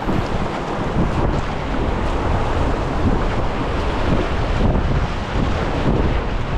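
Rushing whitewater rapids around an inflatable packraft, a steady noise with a heavy low rumble of wind buffeting the microphone.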